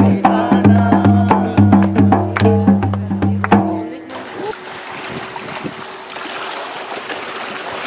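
Music with a regular drum beat, about two or three strikes a second, over a deep bass. It stops about four seconds in, giving way to a steady rushing noise with a faint steady hum.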